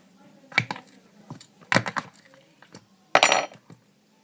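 Handling noise from slime and its plastic containers: three short bursts of clicking and clattering about a second apart, the last the loudest.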